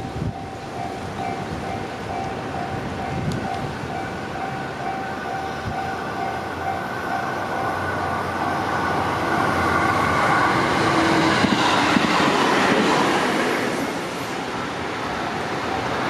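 Japanese railway level-crossing bell ringing in a steady, rapid repeating ding, while a train approaches and passes over the crossing with a rising rush of wheel and running noise. The train is loudest in the second half and then fades as the bell keeps ringing.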